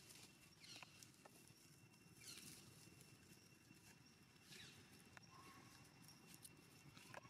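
Faint, high animal squeaks, each sliding down in pitch, four times about two seconds apart, with a few soft clicks in between.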